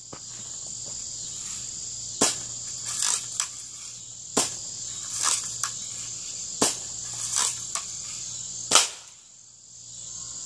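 Daisy BB gun firing four sharp shots about two seconds apart, the last one loudest, with softer clacks between the shots. Crickets chirr steadily throughout.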